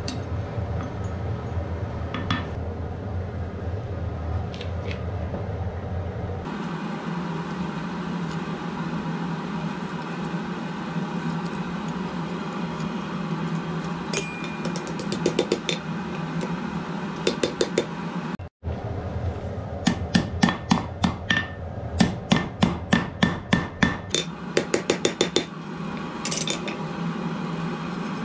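Hand hammer striking red-hot iron on a steel anvil in quick runs of several ringing blows a second, over a steady hum. A few sparse clicks of tongs and tools come before the hammering starts about halfway in.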